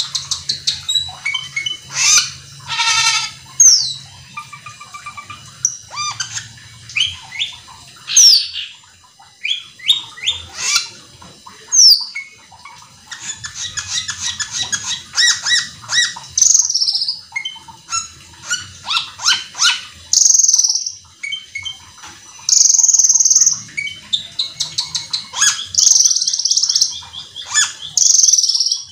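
Asian glossy starling singing a fast, varied song of sharp chips, quick trills, falling whistles and harsh buzzy notes, with hardly a pause.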